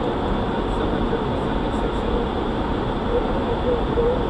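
Steady flight-deck noise of an Airbus A300-600 in flight on its descent: an even, unchanging rush of airflow and aircraft systems heard inside the cockpit.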